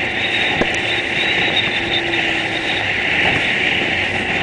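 Outboard motor of a coaching boat running steadily at speed, under a constant rush of wind and water.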